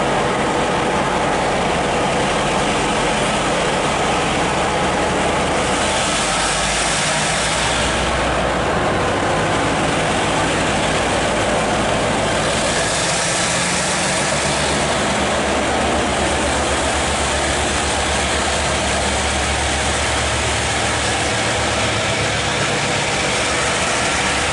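Taiwan Railways diesel-electric locomotive R133 running at low speed as it pulls slowly past close by, a steady diesel hum whose low note shifts a couple of times, about six and thirteen seconds in.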